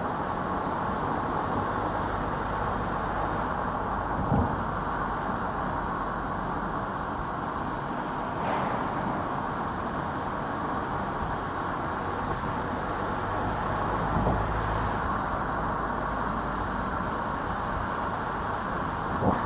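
Car driving along a road: a steady rumble of road and tyre noise, with a few short thumps about four seconds in, about fourteen seconds in and near the end.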